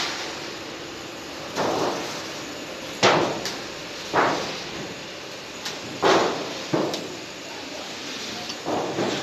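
Roof sheet roll forming machine running with a steady hum while steel sheet feeds through its forming rollers, broken by about six sharp metallic clanks at uneven intervals, each with a short ring.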